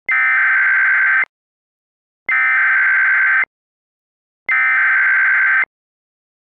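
Emergency Alert System SAME header: three bursts of digital data tones, each about a second long and about a second apart, warbling rapidly between two pitches near 2 kHz and 1.5 kHz. This is the encoded header that opens an EAS alert message.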